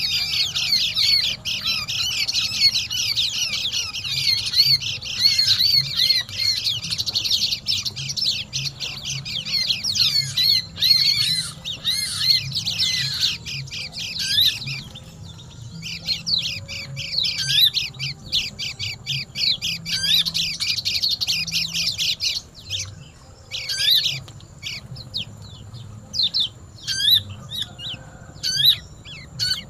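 Sogon and pleci (white-eye) birds calling noisily: a dense, unbroken stream of rapid high chirps with a short break at about 15 seconds, thinning to scattered separate calls in the last seven seconds or so. A faint low hum runs underneath.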